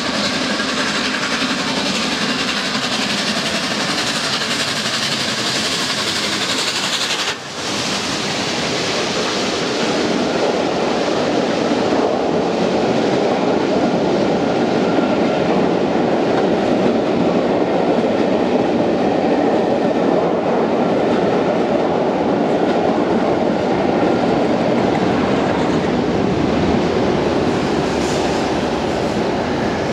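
Ex-LNER Class A4 steam locomotive 60009 accelerating away with its train, then the coaches rolling past over the pointwork close below. A steady, loud rush of rail noise, broken briefly about seven seconds in.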